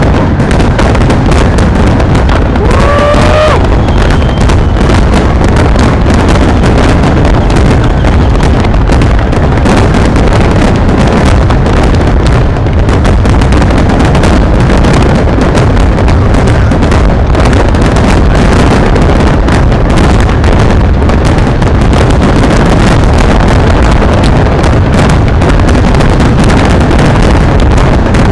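Fireworks display: a dense, unbroken barrage of bangs and crackling, loud throughout, with a short rising whistle about three seconds in.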